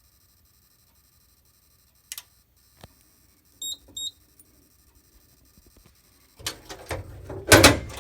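Fire alarm control panel being reset: a couple of clicks, then two short high beeps in quick succession. Near the end comes a cluster of clicks and knocks, the loudest a thump, as the equipment is handled.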